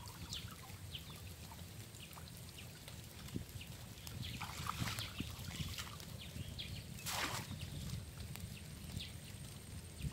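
Water splashing and trickling in a shallow field or pond, with a louder splash about seven seconds in, while small birds chirp in short calls.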